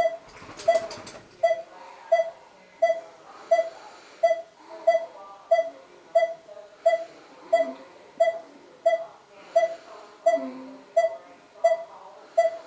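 Electronic medical device beeping steadily, a short single-pitched beep about every 0.7 s. A brief crackling noise sounds about half a second in.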